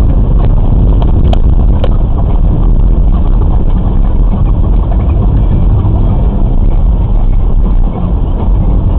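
Car driving on a snow- and ice-covered road, recorded inside the cabin by a dashcam: a loud, steady rumble of engine and tyres, with two sharp clicks about half a second apart a little over a second in.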